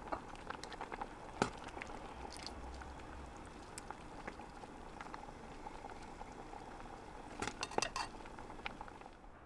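Thick shrimp corn chowder bubbling softly in a pot, with a few sharp clinks and scrapes of a metal ladle as it is served into a bowl, a cluster of them near the end.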